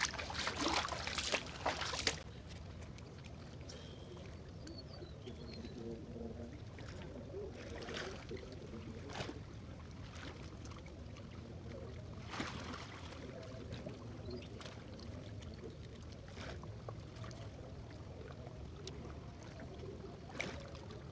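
Faint trickling water at the waterside, with a louder stretch of rustling and handling noise in the first two seconds and scattered small clicks and knocks after that.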